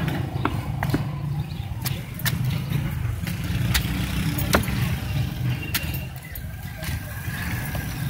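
Heavy knife chopping through a large fish on a wooden chopping block: sharp, unevenly spaced knocks, roughly one a second. Under it runs a steady low engine rumble.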